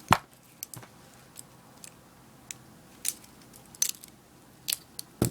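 Butterfly-style spoon being handled and flipped, its handles clicking against each other: about a dozen irregular sharp clicks, the loudest right at the start.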